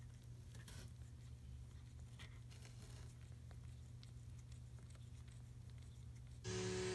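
Quiet room tone with a steady low hum and a few faint rustles. Music starts near the end.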